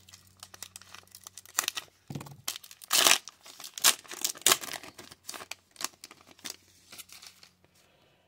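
Foil Topps Bowman University football card pack wrapper being torn open and crinkled by hand: a string of sharp rips and crackles, loudest between about three and four and a half seconds in, fading to light rustling near the end.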